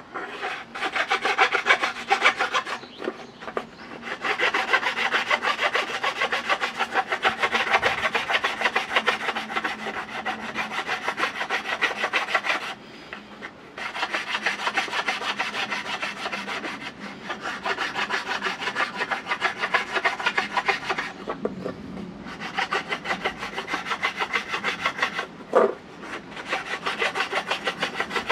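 Fast back-and-forth scraping strokes of a hand tool working a bamboo fishing rod, in long runs broken by a few short pauses.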